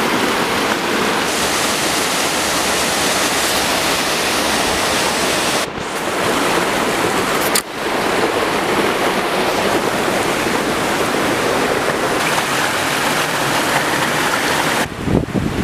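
Creek water rushing steadily over rocks and small cascades, with two brief dropouts about six and eight seconds in.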